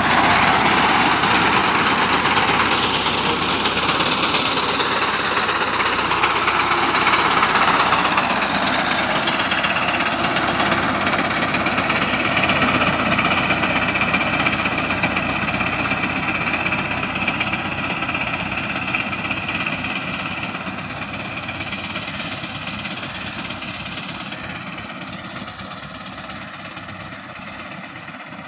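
Massey Ferguson 240 tractor's diesel engine working under load with its front-mounted reaper cutting wheat, a steady mechanical din that grows fainter as the tractor moves away.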